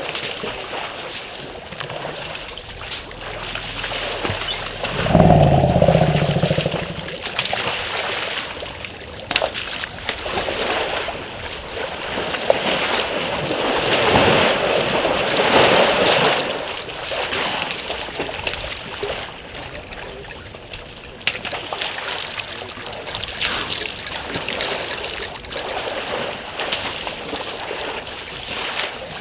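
Water splashing and sloshing as an elephant herd wades, drinks and soaks in a waterhole, busiest in the middle. A loud low-pitched sound lasting about two seconds comes about five seconds in.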